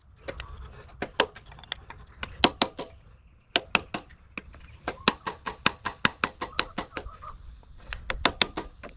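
A piece of wood tapping the front seal gland back into a log splitter's hydraulic cylinder: quick, sharp taps, about three to four a second, with a short pause about three seconds in.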